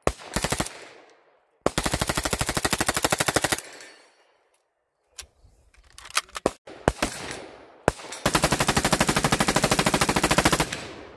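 Fully automatic gunfire. An MP5 submachine gun fires a short burst and then a long burst of about two seconds. After a few scattered single shots, an M16 rifle fires a long automatic burst of about two and a half seconds near the end.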